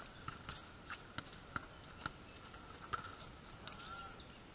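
A volleyball being struck and bouncing on a concrete court during play: a series of irregular sharp slaps and thuds, about seven of them.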